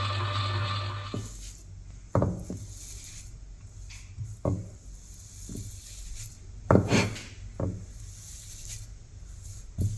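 Electric grinder motor running with a steady hum, then switching off about a second in. Several separate knocks and clunks follow as the grinder jar and lid are handled.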